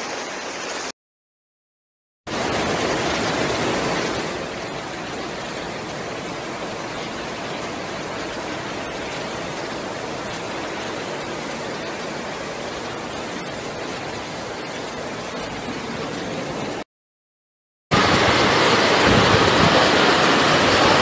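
Floodwater rushing through city streets, a steady noise of running water. It breaks off twice for about a second at cuts between clips, and the last few seconds, a fast brown torrent, are louder.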